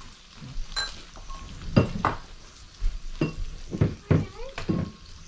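Meat sizzling in a tabletop electric pot, with a series of sharp clinks and taps of chopsticks and utensils against the pot and dishes.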